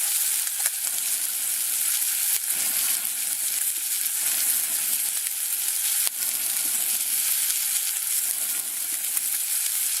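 Steak sizzling on a grill over a campfire: a steady hiss with a few small pops.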